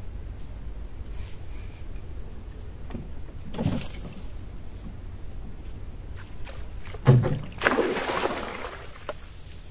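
A hooked mangrove jack thrashing and splashing at the water's surface beside the boat as it is netted: a short splash about three and a half seconds in, a single knock about seven seconds in, then a loud spell of splashing lasting about a second and a half.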